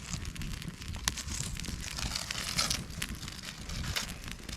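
Newly lit campfire of fatwood shavings crackling as it catches, with irregular sharp pops and short bursts of hiss.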